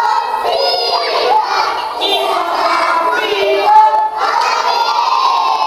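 A group of young children singing and shouting together loudly, ending on a long held note.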